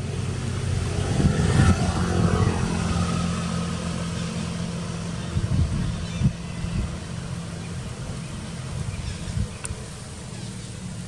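A motor vehicle engine running with a steady low hum, fading after about eight seconds, with wind rumbling on the microphone.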